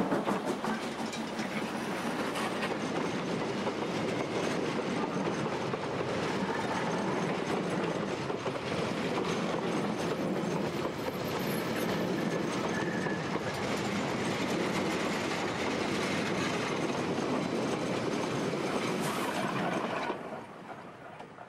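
New Zealand Railways JA class 4-8-2 steam locomotive No. 1250 passing close by with its train. Rapid exhaust beats at the start give way to the carriages running past, wheels clattering over the rail joints, and the sound falls away about twenty seconds in as the train leaves.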